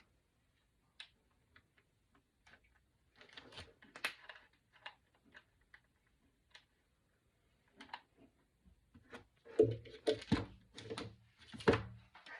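Scattered small clicks and taps of craft pieces being handled on a tabletop while hot glue is applied, with a few louder knocks near the end.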